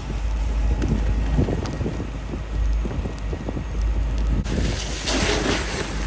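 Strong wind buffeting the microphone with a deep rumble, over the crackling of a car burning. About four and a half seconds in, a loud hiss of fire-hose water spraying into the flames starts.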